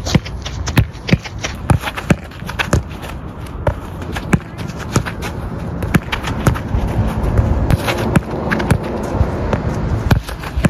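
A football being tapped and kicked with boots on artificial turf during dribbling and turn drills: a run of sharp, irregular ball touches and footfalls, several a second, over a low wind rumble on the microphone.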